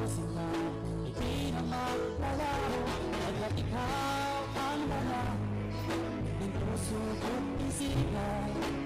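Background music: a song with bass, guitar and a sung melody over a steady beat.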